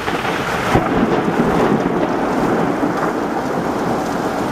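A loud thunderclap about a second in, then thunder rumbling on over heavy, wind-driven rain.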